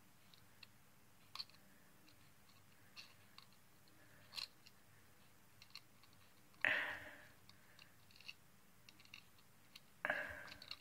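Small scattered clicks and wet mouth sounds as the pliers of a Swiss Army knife grip and work a child's loose tooth. Two short breaths come through louder, about two-thirds of the way in and near the end.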